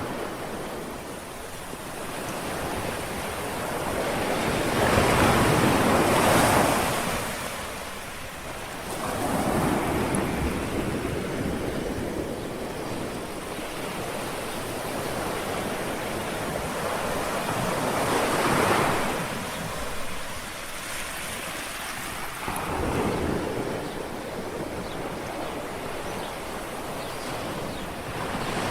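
Small sea waves lapping on the shore, each wave swelling and washing back over a few seconds, two of them larger than the rest, with a light wind underneath.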